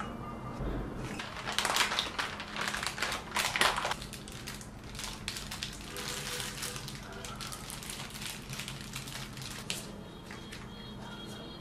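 Plastic snack and candy wrappers crinkling and rustling as they are handled and set into ceramic dishes, with light clicks. The loudest crinkling comes about two to four seconds in, then it goes on more softly. A faint steady low hum runs underneath.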